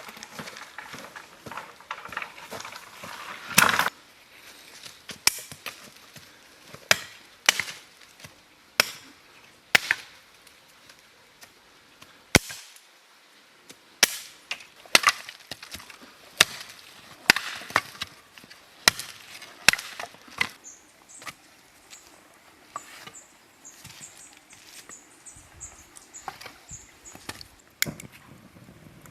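Firewood being broken up for a campfire: a series of sharp, irregular wooden cracks and knocks, roughly one a second, some much louder than others.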